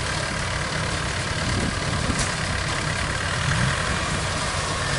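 Kubota DC70 Plus rice combine harvester running steadily: a low engine hum under a dense, even mechanical noise.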